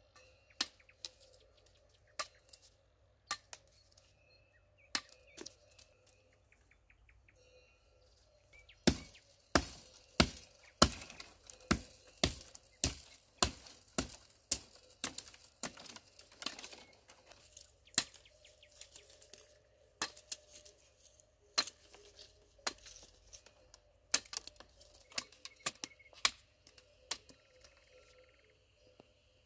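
Hatchet chopping a thin sapling: sharp wooden strikes, scattered at first, then a fast run of loud blows about two a second, then spaced cuts again.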